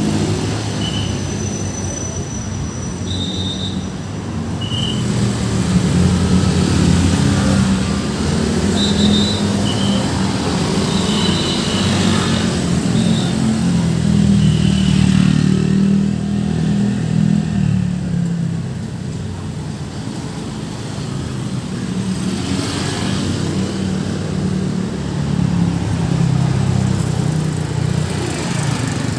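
Road traffic of motorcycles and cars passing with a continuous engine rumble that swells twice as vehicles go by, with a scattering of short high chirps in the first half.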